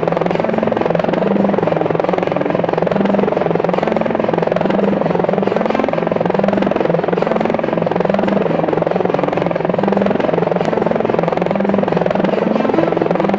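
DJI Mavic Pro quadcopter's propellers buzzing steadily, with a wavering hum.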